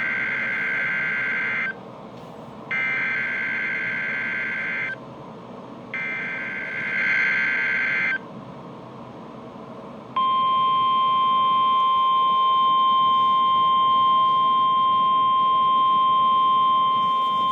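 NOAA Weather Radio Emergency Alert System weekly test tones. Three bursts of SAME digital header data, each about two seconds long, with short gaps between them. About two seconds after the last burst the steady, single-pitch 1050 Hz warning alarm tone starts and holds.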